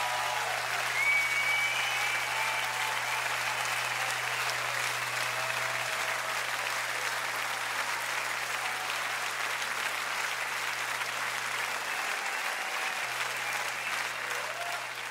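Large concert audience applauding and cheering after a song ends, starting to fade out near the end.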